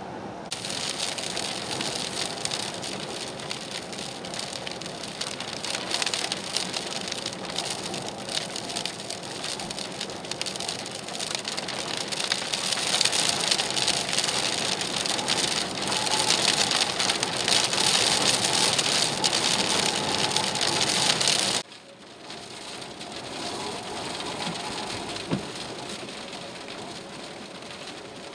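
Storm noise: a steady hiss of wind and driving rain that swells in gusts. It drops suddenly to a quieter stretch about three-quarters of the way through.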